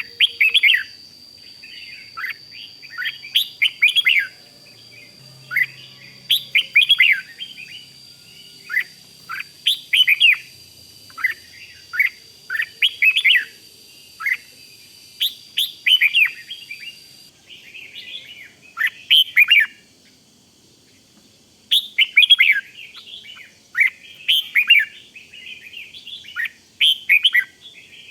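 Red-whiskered bulbul singing short, rapid chirping phrases over and over, with a brief pause about two-thirds of the way through.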